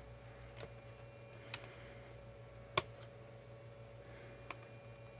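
Four light clicks and taps from tools and plastic parts being handled while taking a laptop apart; the third, near the middle, is the loudest. A faint steady hum runs underneath.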